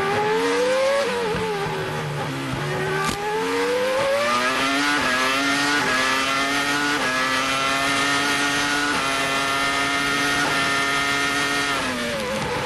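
Arrows A23 Formula One car's Cosworth V10 engine, heard from onboard at full throttle. It eases off and picks up again early, climbs through several quick upshifts, holds high revs flat out, then its pitch falls near the end as the driver brakes and downshifts.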